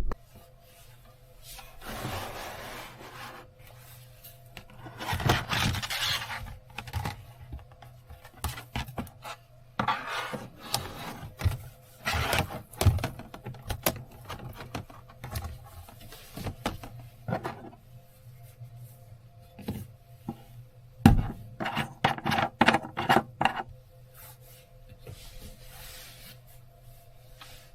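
Things being handled and rubbed together: irregular scraping and rustling with light knocks, in clusters around a quarter of the way in and again about three quarters of the way in, over a faint steady hum.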